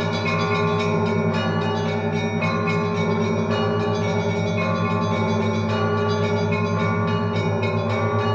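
Festive Orthodox bell peal (prazdnichny zvon) on the Kyiv-Pechersk Lavra's church bells: small bells struck in a rapid, steady rhythm over the sustained hum of the larger bells.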